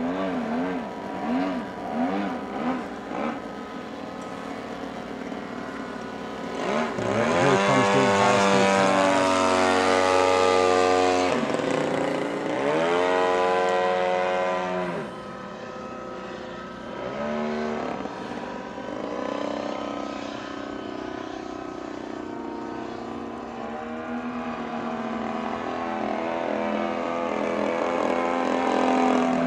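Radio-controlled model airplane's engine and propeller running through aerobatics. The pitch wavers with throttle changes, then drops sharply during loud low passes, the loudest about a third of the way in, followed by another and then fainter ones.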